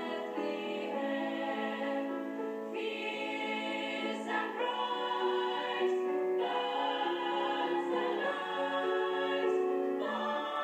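A group of sixth-form singers singing in harmony, several voices holding sustained notes that change every second or so.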